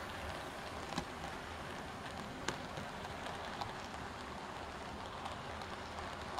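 Model train running past on the track: a model Class 37 diesel hauling a coach and nuclear flask wagons, a steady rolling rush with a few sharp clicks, the loudest about one and two and a half seconds in.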